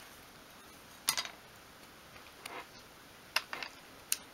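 Mitre guillotine blade chopping through a thin wooden strip with one sharp snap about a second in, followed by a few lighter clicks of the tool and the cut wood being handled.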